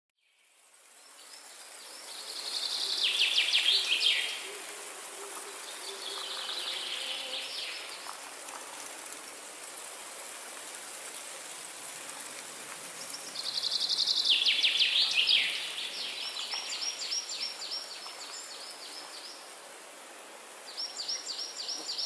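Forest ambience fading in: a songbird singing fast trilled phrases that drop in pitch, repeated every few seconds, over a steady high hiss of insects.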